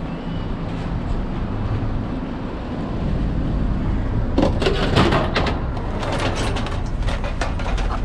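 A steady low rumble, then from about four and a half seconds a run of clanks and rattles as scrap metal and cables are put into the back of a van.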